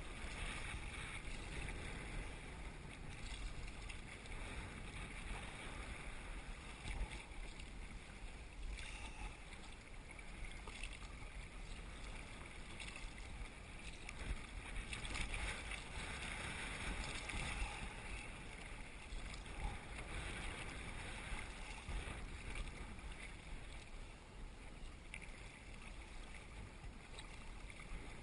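Kayak being paddled across choppy water: paddle strokes splashing and small waves lapping against the hull, with a steady low rumble of wind on the microphone.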